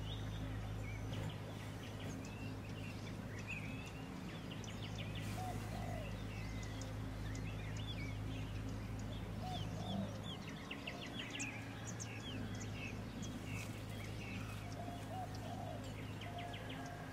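Wild birds calling, with scattered chirps, quick trills and short rising notes, over a steady low hum.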